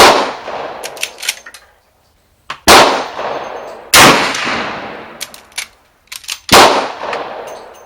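Four gunshots, each followed by a long, echoing decay. The first comes right at the start, then three more follow over the next six and a half seconds. Fainter, sharp cracks fall between the shots.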